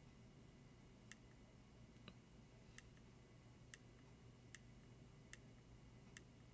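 Faint, sharp clicks about once a second from the menu button of a BETAFPV Micro 1W ELRS transmitter module, pressed repeatedly to step through its screen menu.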